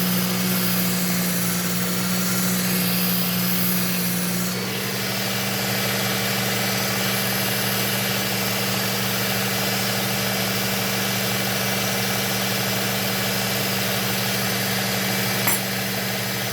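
Electric belt sharpener running steadily with its motor humming, a kitchen knife being sharpened on the abrasive belt. The grinding hiss eases and the motor note shifts about four and a half seconds in, and there is a small click near the end.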